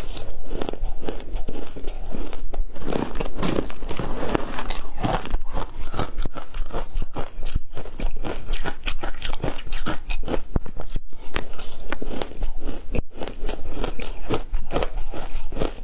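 Ice coated in matcha powder being bitten and chewed close to the microphone: a dense, continuous run of sharp crunches and crackles.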